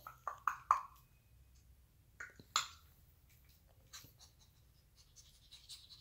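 African grey parrot imitating a dog's sniffing: four quick sniffs in the first second, then two more a couple of seconds in, the second the loudest.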